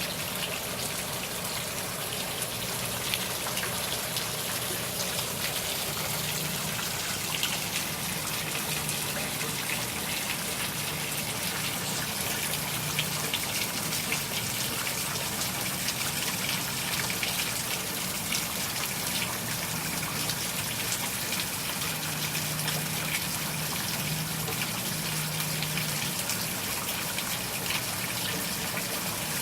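Steady heavy rain from the storm remnants of Hurricane Matthew, with water gushing and trickling as it runs off and drips.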